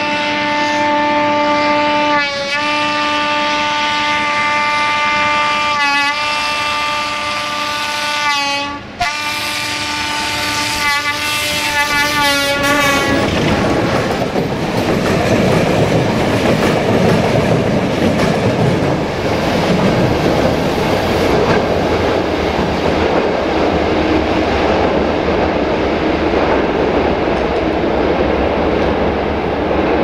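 Horn of a Romanian CFR 060-DA (LDE2100) Sulzer diesel-electric locomotive, sounded in long blasts and then a quick string of short toots as it approaches. After about 13 seconds the horn stops and the train runs past: locomotive and passenger coaches rushing by with wheel clatter on the rail joints.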